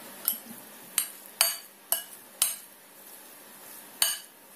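Metal spoon clinking against a glass bowl while stirring minced meat filling: six short clinks, five of them in quick succession over the first two and a half seconds and one more about four seconds in.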